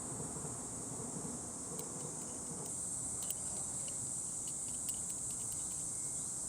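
Insects chirring in a steady high-pitched drone, with faint scattered ticks in the second half.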